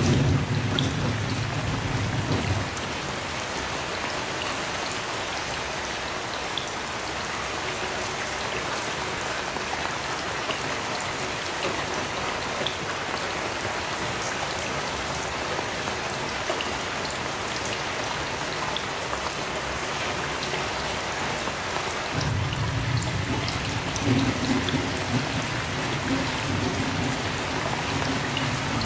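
Heavy rain falling steadily, with scattered sharp drop ticks. A low thunder rumble fades out about two seconds in and rolls in again about 22 seconds in, running on to the end.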